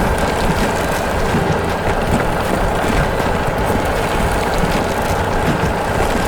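A vehicle engine running steadily, a dense even rumble with a constant high whine over it.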